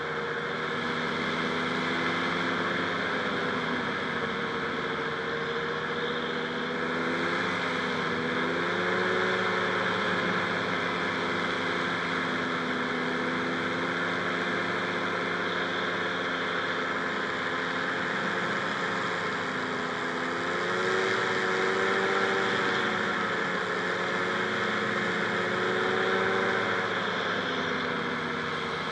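Rotax 582 two-stroke twin engine and propeller of a Buckeye powered parachute running steadily. Its pitch and loudness rise and fall gently a few times, about a third of the way in, again past two thirds, and near the end, as the throttle is worked.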